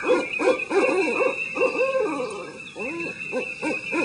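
Owls hooting, many arching calls overlapping one another, over a steady high drone.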